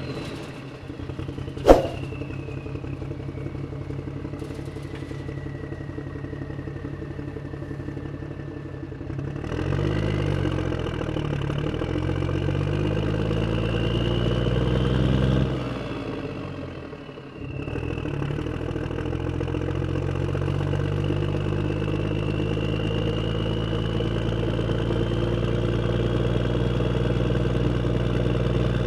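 A motor engine running: it picks up speed and gets louder about ten seconds in, drops away briefly around sixteen seconds, then runs on with a slowly rising pitch. A single sharp knock comes near two seconds in.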